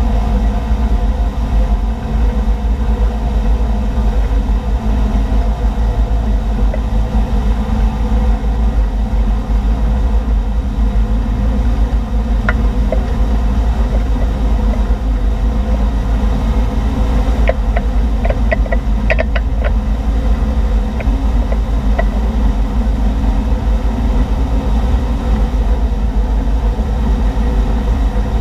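A tow boat's engine running steadily at water-skiing speed: a constant low drone mixed with the rush of the churning wake.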